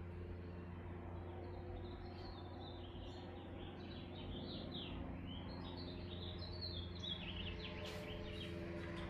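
Birds chirping in a quick run of short, high, falling notes, over a steady low electrical hum. A few sharp clicks come near the end.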